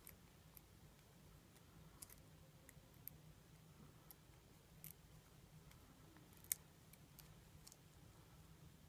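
Faint, scattered clicks and small scrapes of a hand pipe cutter being turned around the metal case of a .410 shotgun cartridge to cut it open, with one sharper click about six and a half seconds in.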